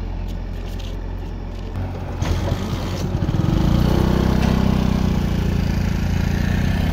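An engine running steadily, with a few knocks about two seconds in, then growing louder from about three and a half seconds in and holding there.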